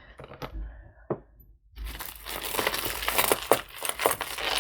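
Jewelry being rummaged through by hand: a few separate clicks, then from about two seconds in a dense run of small metal clinks and rustling.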